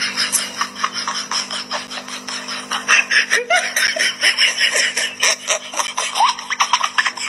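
A person laughing hard in quick repeated bursts, over a steady low hum.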